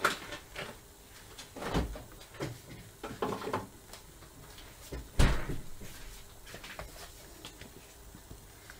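A few scattered knocks and clunks, the loudest a heavy thump about five seconds in.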